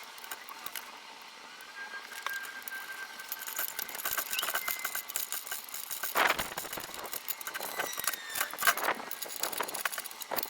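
Clattering and rattling of hard objects being handled, with a louder knock about six seconds in.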